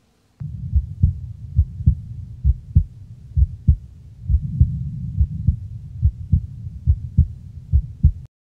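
Soundtrack of low, thudding beats like a heartbeat, about three a second, over a low drone. It starts about half a second in and cuts off suddenly near the end.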